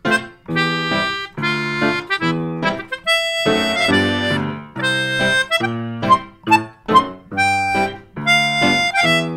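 Instrumental music: a bouncy tune of short, separated notes in a steady rhythm.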